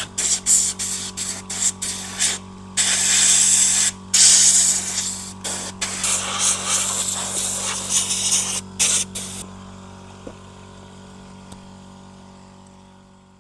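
High-pressure spray gun on a coiled hose hissing in many short on-off bursts as the jet is played over a brush cutter's engine and shaft, with a steady low hum underneath. The spraying stops about nine seconds in, and the hum then fades away.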